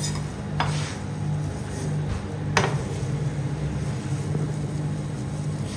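Metal spatula scraping and knocking on the frozen steel plate of a rolled ice cream pan, two sharp strokes with the second louder, over a steady low machine hum.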